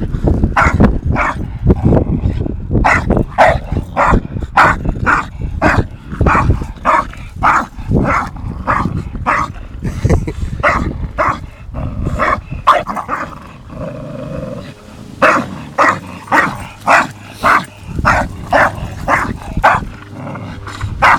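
Two dogs, a Staffordshire bull terrier puppy and an English bulldog, growling and barking in short repeated bursts, about two or three a second, while tugging at each other muzzle to muzzle. There is a brief lull about two-thirds of the way through.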